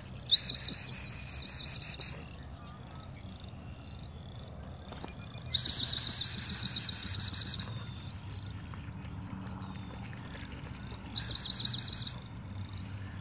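Dog training whistle blown in three loud trilling blasts, two of about two seconds each and a shorter one near the end, calling the retriever back in.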